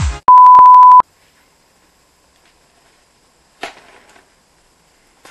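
A loud, steady, pure electronic beep lasting under a second, like a censor bleep. Then near silence, with one brief faint knock and rustle about three and a half seconds in.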